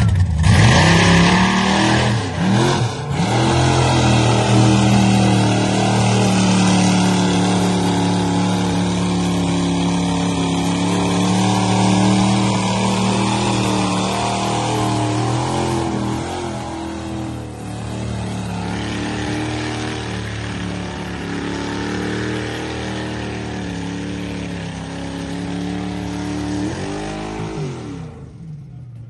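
Mega mud truck's engine running hard under load as it drives through a mud pit, its pitch wavering up and down with the throttle. Near the end the revs fall away and the sound drops off.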